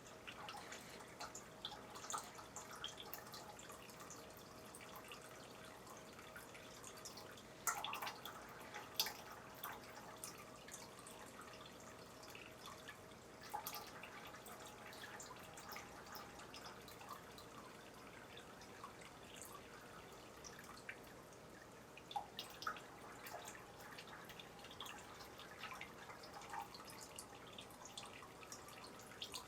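Faint, irregular drips and small splashes of water in an aquarium, a few louder ones about eight and nine seconds in, over a faint steady hum.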